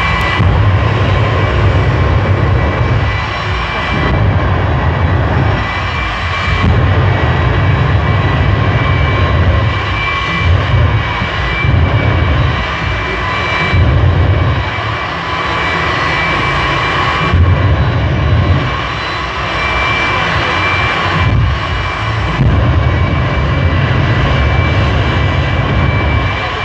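Jet-engined drag vehicle's turbine running at the start line: a steady high whine with a low rumble that swells and drops every second or two.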